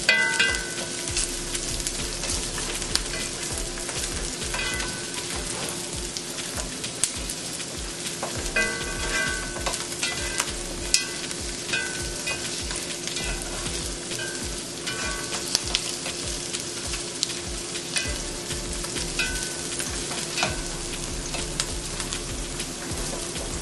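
Onions sizzling as they sauté in a frying pan, stirred with a utensil that scrapes and clinks against the pan every few seconds, with a steady low hum underneath.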